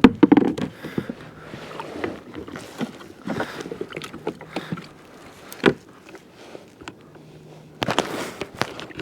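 Irregular knocks, clicks and rattles of fishing gear being handled on a plastic fishing kayak, with the loudest knocks just after the start and near six seconds in.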